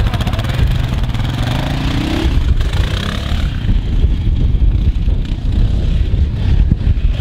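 Yamaha Raptor 700R ATV's single-cylinder four-stroke engine revving as the quad pulls away, pitch rising over the first two seconds, then dropping back and running on duller as it rides off across grass.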